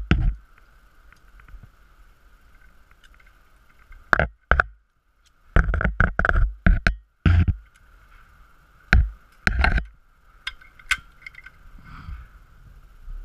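Wind buffeting the action camera's microphone in loud, sudden gusts, clustered about four, six, nine and twelve seconds in, over a faint, steady high whine.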